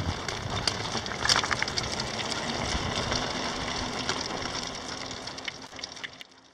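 Mini Springtail dog sulky rolling along a paved road behind a two-dog team: steady wheel and road noise with small rattles and clicks, fading out near the end.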